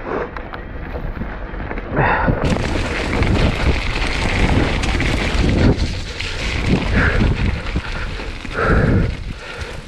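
Rumbling wind buffeting and trail noise on the microphone of a mountain bike riding down a wet, muddy trail, swelling and easing in irregular surges.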